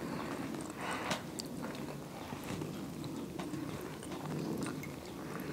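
A person chewing soft steamed tacos, with scattered light clicks of a metal fork against a ceramic plate, over a steady low background noise.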